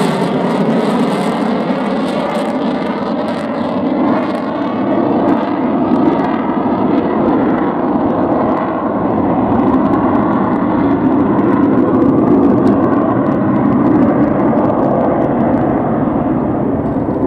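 Jet noise from a pair of Eurofighter Typhoons, twin-turbofan fighters, passing low and flying away. A loud, steady rush with a wavering, phasing quality. Its high hiss fades in the first couple of seconds, leaving a deep rumble.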